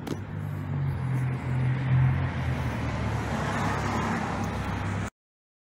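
A motor vehicle engine running steadily nearby as a low hum, with road noise swelling partway through. The sound cuts off suddenly near the end.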